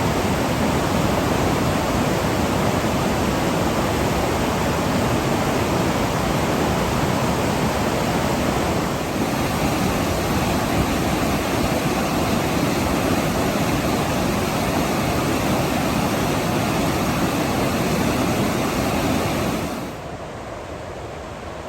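Waterfall: a steady, loud rush of falling water that drops abruptly to a quieter rush near the end.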